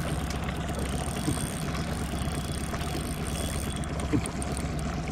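Boat motor running steadily at idle, a low even hum.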